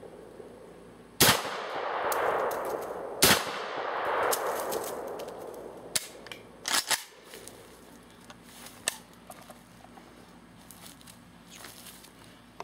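Saiga 12 semi-automatic 12-gauge shotgun firing slugs: two loud shots about two seconds apart, each followed by a long rolling echo. A few quieter clicks and knocks follow.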